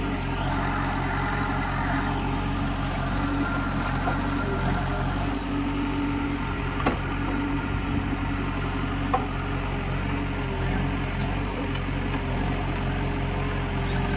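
Diesel engine of heavy earth-moving machinery running steadily with a low, even pulse, and two sharp knocks about seven and nine seconds in.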